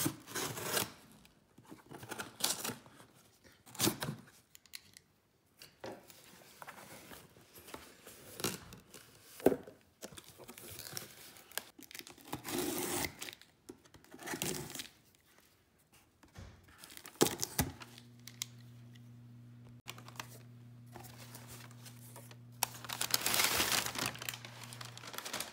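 Shipping-box packaging being torn open and crinkled by hand, in irregular rustling and tearing bursts that are loudest near the end. A faint low steady hum comes in about two-thirds of the way through.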